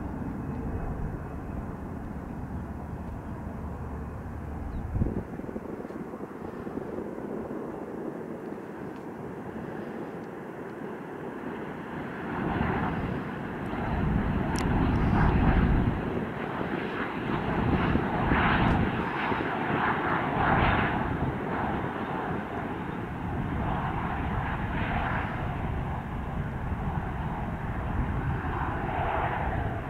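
Bombardier CRJ-900's twin rear-mounted General Electric CF34 turbofans landing: a steady jet engine sound on short final that grows louder at touchdown a little under halfway in and stays loud, surging several times, through the rollout.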